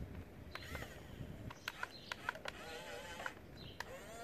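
Small electric gear motors of an RC toy excavator whining as the boom lifts and the claw opens, with a few sharp clicks; the whine is clearest for about a second near the end.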